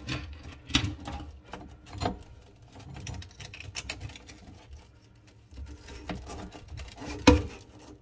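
Faucet installation parts being handled, giving irregular clicks, clinks and knocks of small hard pieces, with the sharpest knock about seven seconds in.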